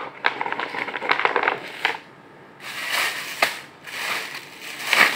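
Wood pellet cat litter being scooped with a plastic scoop in a plastic litter tray, the pellets and sawdust crunching and rattling. A run of quick crackles comes first, then three scraping, pouring swishes.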